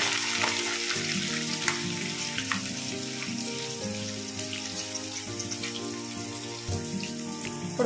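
Sliced onions sizzling in hot oil in a nonstick kadai, just after being tipped in on top of green chillies and curry leaves. Background music of sustained notes plays underneath.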